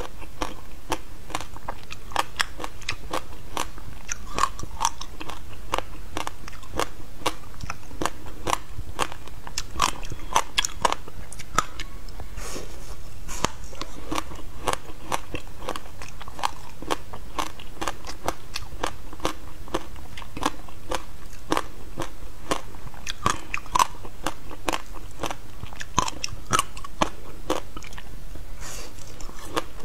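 Biting and chewing a frozen slab of shaved ice with passion fruit pulp: crisp crunches and crackles of the ice breaking between the teeth, several a second, picked up close by a clip-on microphone.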